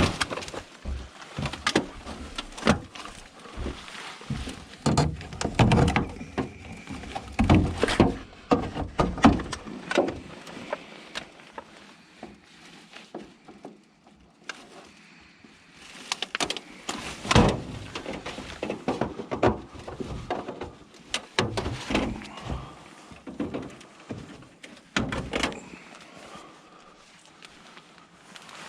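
Irregular knocks, thuds and clatter of scrap being handled and sorted by hand, with a quieter stretch about halfway through and a heavy thud a few seconds later.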